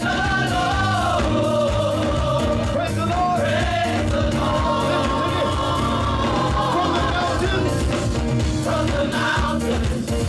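Gospel mass choir singing with steady instrumental backing, amplified through a PA.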